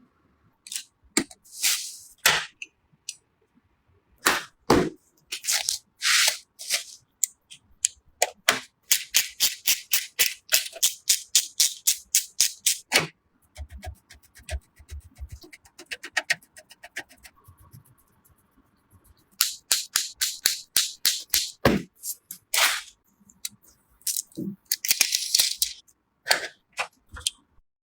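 A long series of sharp clicks and snaps of hardware being handled and clipped together, some single and some in fast runs of about five a second, over a faint steady hum.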